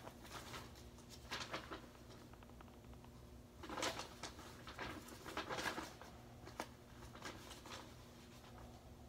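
Faint scuffing and fabric rustling in a few short bursts as sock-covered Adidas Gazelle indoor soccer shoes shift against a hard floor. The loudest bursts come about four and five and a half seconds in.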